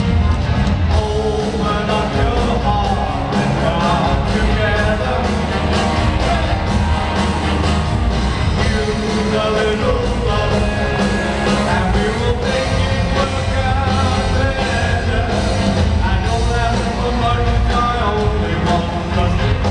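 Live rock band playing with a male lead vocal, recorded from the audience in a large arena hall.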